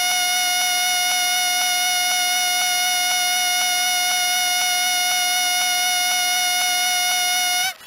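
A single steady, high-pitched tone with many overtones, held without wavering for several seconds like a long alarm beep, then cut off abruptly near the end.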